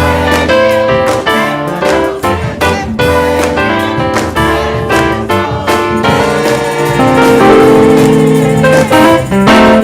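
Gospel band music led by piano or keyboard, with drums keeping a steady beat and chords that swell into a held passage near the end.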